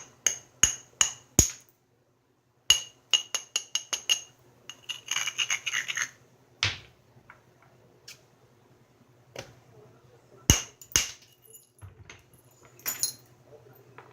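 Flintknapping: a hammer stone tapping on the edge of a stone biface in quick runs of about three light, ringing clicks a second, a short scraping, then a few louder single strikes that drive thinning flakes off the base.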